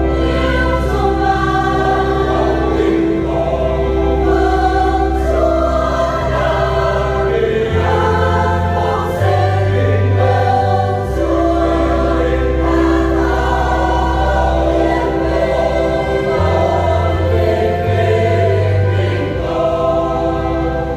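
Church choir singing a Catholic hymn in held, sustained chords over steady low bass notes that change every few seconds.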